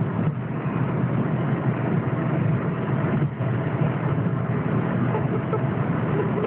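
Steady road and engine noise inside a moving car's cabin, with a faint steady hum on top.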